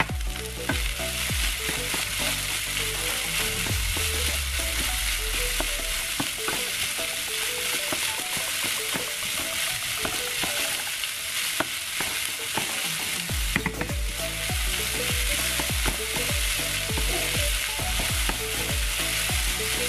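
Rice and green beans sizzling in oil in a nonstick frying pan, with a wooden spatula stirring and scraping through them in scattered light clicks over a steady hiss.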